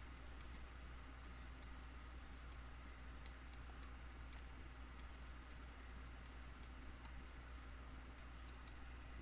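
Faint computer mouse clicks, about ten of them at irregular intervals, over a steady low electrical hum.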